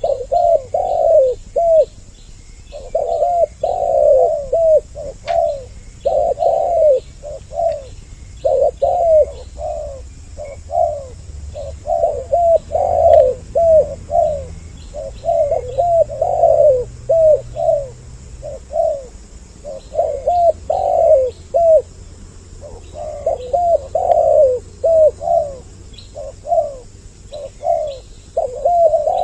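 Spotted doves cooing over and over in a continuous run of phrases, two birds often calling over each other. Faint high chirps of small birds sound behind them.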